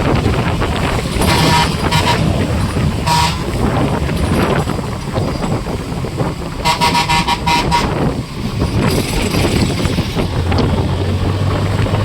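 A vehicle horn tooting: two short blasts in the first few seconds, then a longer blast about seven seconds in, over steady engine and wind rumble.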